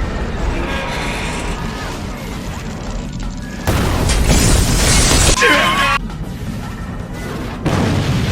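Animated-series soundtrack of music with crashing, booming sound effects; a louder crash comes about four seconds in and another near the end, with a short warbling tone between them.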